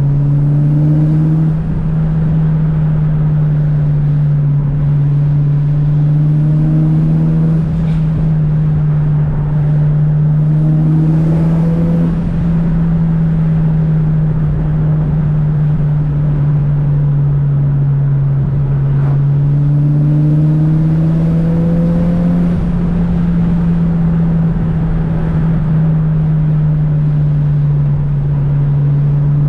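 Turbocharged 4G63 inline-four of a Mitsubishi Lancer Evolution VIII, tuned to about 400 hp, running at a steady cruise. It makes an even, low drone whose pitch rises and dips only slightly, with no hard acceleration.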